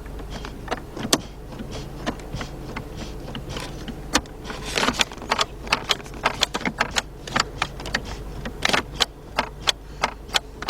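Irregular clicks and small knocks of plastic and metal as the gear-shift cable and shift-interlock solenoid under a car's center console are pulled and worked by hand, over a steady low hum. The clicks come thicker about halfway through.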